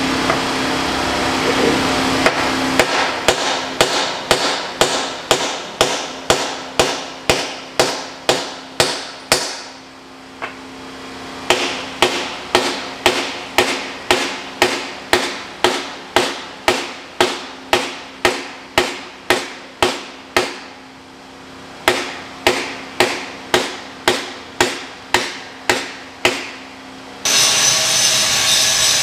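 Hammer blows driving the old shaft and arbor assembly out of a Pottinger Terra Disk bearing hub: sharp, evenly paced strikes about two a second, in three runs with short pauses between. Near the end the hammering stops and a steady rushing noise takes over.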